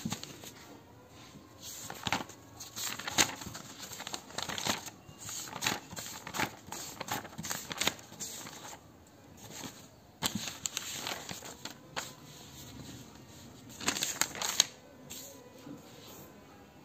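Paper exam booklet sheets rustling and crinkling as pages are handled and turned, in irregular flurries, the louder ones about two to three seconds in, around ten seconds and around fourteen seconds.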